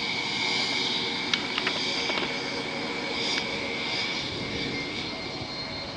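Rear-mounted twin jet engines of a business jet running at taxi power: a steady high-pitched whine over a low rumble as the jet rolls and turns away.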